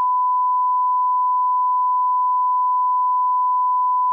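A steady, unbroken pure sine tone at about 1 kHz: the 1 kHz reference (line-up) tone placed at the head of a broadcast commercial dub.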